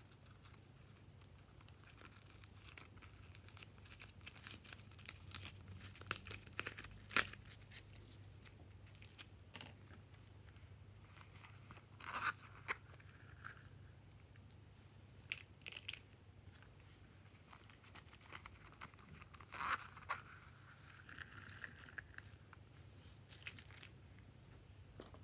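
Glitter slime and plastic pieces being handled: scattered soft clicks, crinkles and sticky tearing sounds as slime is peeled from plastic molds. About twelve seconds in and again about twenty seconds in come short scraping strokes from the zipper of a small plastic pouch being pulled open.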